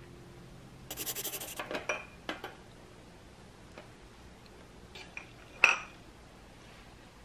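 Ceramic ramekins being handled on a tray: a short scraping rattle about a second in, a few light knocks, then one sharp clink of dish on dish a little before the end.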